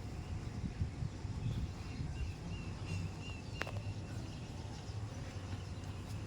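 Wind buffeting the microphone as a low, gusting rumble, with a short run of faint bird chirps about halfway through and a single sharp click just after them.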